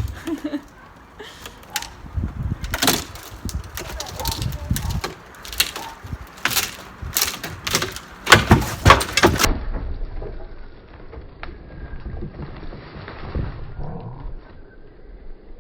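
Sledgehammer blows on a timber shed's boards: a fast run of sharp, cracking strikes, loudest about eight seconds in. After that come quieter scattered knocks and rattling of loose wood.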